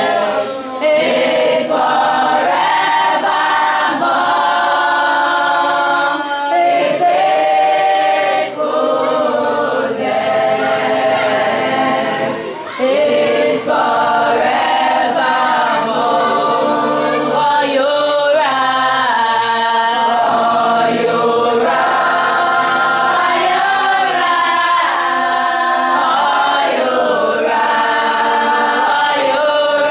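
A group of school students singing a song together in chorus, unaccompanied by any instrument.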